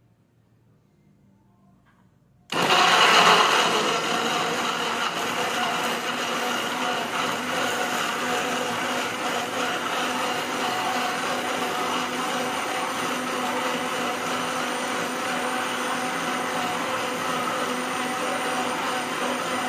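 Philips HR2042 blender's 290-watt motor switching on suddenly about two and a half seconds in after near silence. It is loudest for the first second or so, then runs steadily as the blades puree chunks of tomato and carrot.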